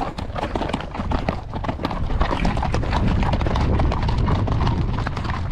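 A horse's hooves clopping and shuffling on rocky ground, with a steady low rumble underneath.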